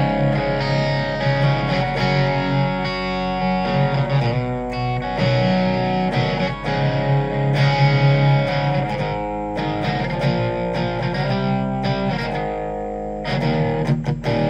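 Electric guitar played through a Blackstar ID:Core Stereo 10 V2 practice amp on its Crunch channel with the gain set low, giving a lightly broken-up, mildly overdriven tone. Notes and chords ring on and change throughout.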